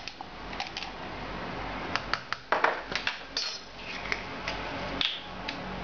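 Light metal clinks and taps at the open steel cup of an electric spice grinder as ground spice is spooned in: a scattering of short, irregular clicks, a little louder about halfway through.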